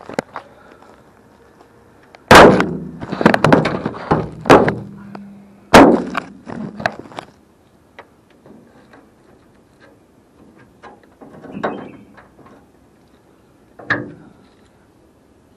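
Hard knocks and clunks of handling: a loud sharp knock a couple of seconds in, a rattling cluster of knocks over the next few seconds, another sharp knock about six seconds in, then two fainter knocks near the end.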